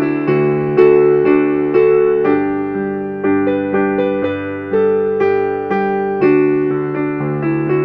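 Piano music: a gentle melody with chords, notes struck about once or twice a second, each fading away after it sounds.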